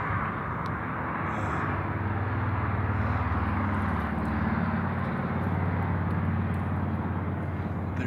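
A distant engine drone, swelling about two seconds in and then holding steady.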